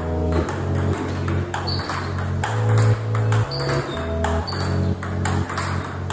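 Background music with a low bass line that changes note about every half second. Over it, the sharp clicks of a table tennis rally: the celluloid ball striking rubber bats and bouncing on the table, a few times a second.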